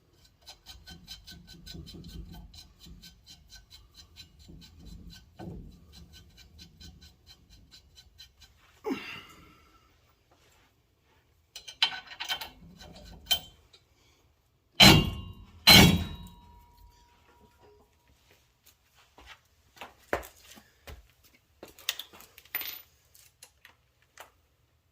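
Ratchet wrench clicking quickly and evenly for several seconds while a fine-threaded nut is run down. It is followed by scattered metal clanks and two loud metal-on-metal bangs about a second apart, the second ringing briefly, then a few light clicks near the end.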